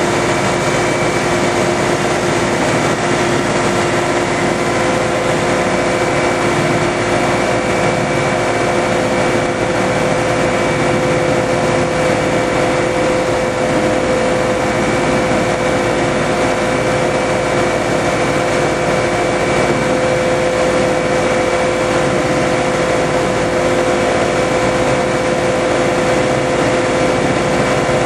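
A boat's 125 hp hydraulic thruster drive running steadily under power: a constant mechanical hum with a few held pitches, over the rush of the propeller wash.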